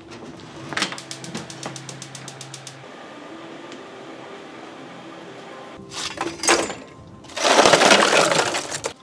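Lumps of charcoal poured from a scoop into a charcoal box, clattering and cracking against each other for about a second and a half near the end. Earlier, a gas stove burner's igniter clicks rapidly for about two seconds as the charcoal pan is set over the flame.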